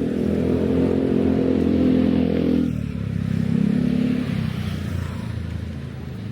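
Motor vehicle engines passing close by in street traffic. One engine grows louder for about two and a half seconds, then drops sharply in pitch and level. A lower engine note follows and fades.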